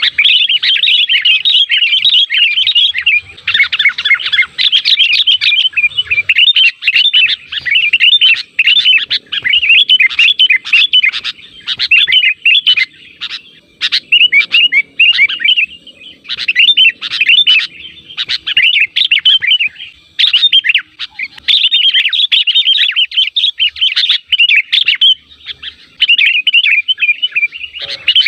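Sooty-headed bulbuls (kutilang) chattering: dense runs of quick, high chirps with a few short pauses.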